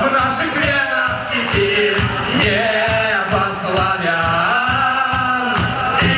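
A band playing a song with a singing voice over a steady drum beat.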